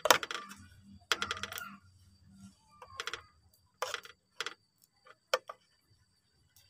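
Metal spoon clinking and scraping against an aluminium baking pan while spreading a thin layer of cake batter, in short clusters of clicks about once a second.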